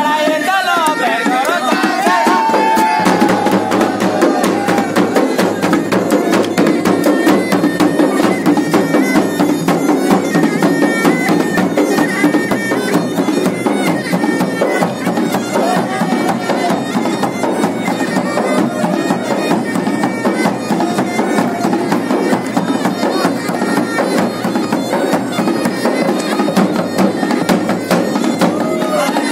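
Garhwali folk band music: a masakbeen (Garhwali bagpipe) plays a melody over its steady drone while dhol and damau drums beat a fast, driving rhythm.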